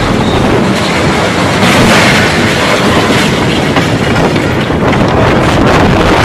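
Strong gale-force wind blasting the microphone: a loud, steady rushing rumble with scattered rattles and knocks.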